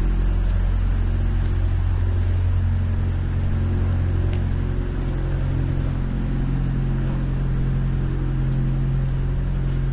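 Steady low drone of a vehicle engine running close by.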